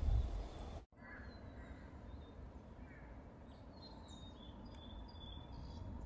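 Wild birds chirping and calling in woodland. A low wind rumble on the microphone fills the first second, then cuts off sudden at an edit, and after that the scattered chirps and short whistles sit over a faint steady outdoor hiss.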